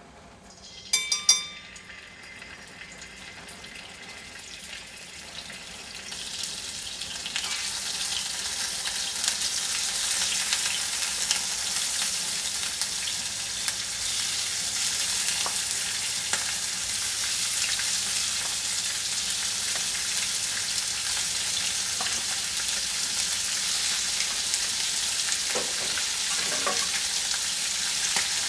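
Raw chicken pieces sizzling in hot oil in a tajine pot on a gas burner. The sizzle builds over the first several seconds as more pieces go in, then holds steady. A brief clink comes about a second in.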